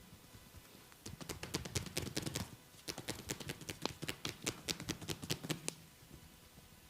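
A rapid run of hand slaps and taps on skin, the percussive strokes of a massage, several a second, starting about a second in, with a brief break partway through and stopping near the end.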